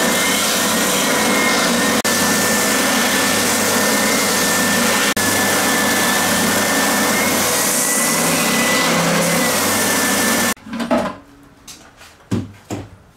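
Triton TSPST450 oscillating spindle sander running steadily with its dust extraction hose attached, sanding a piece of wood against the drum. It stops suddenly about ten and a half seconds in, followed by a few light knocks.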